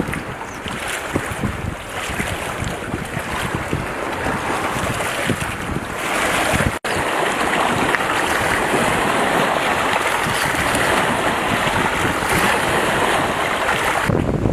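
Wind buffeting the microphone over the rush of water, a steady noisy hiss. It cuts out abruptly for an instant a little under halfway, then carries on louder and more even.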